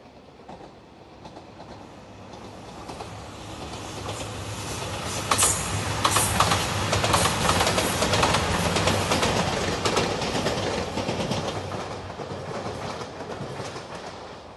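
JR Shikoku 2700 series diesel limited express passing at speed, its engines running and its wheels clicking over rail joints. It grows louder as it approaches, is loudest about halfway through with a string of sharp clicks, and fades as it goes away.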